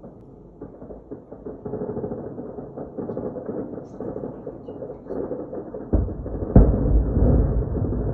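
Rapid, irregular gunfire crackling in the city, with a heavy explosion boom about six seconds in that is the loudest sound and rumbles on afterwards. The audio is dull and muffled, as from a phone recording.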